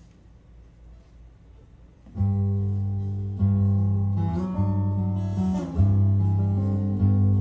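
Acoustic guitar begins playing about two seconds in, with chords struck roughly once a second and ringing between strikes.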